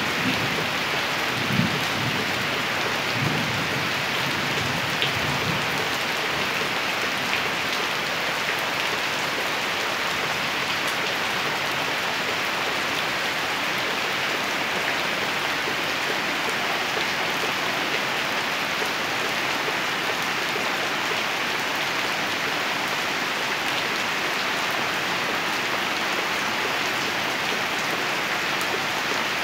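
Steady rain falling and pattering on surfaces, with the last low rumble of thunder dying away in the first few seconds.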